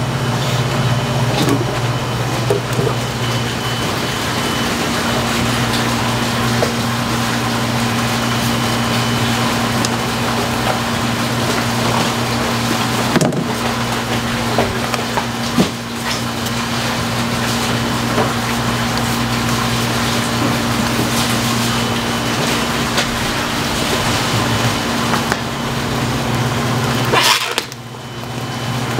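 A steady electric machine hum over a constant noise bed, with a few knocks on top. It drops away briefly near the end.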